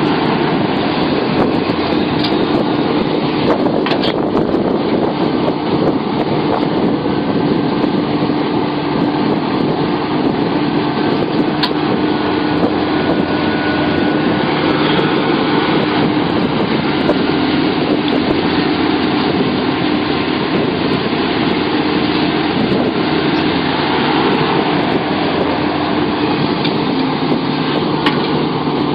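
Sumitomo SH700LHD-5 excavator's diesel engine running steadily under way, a constant drone with a steady hum and a few light clicks.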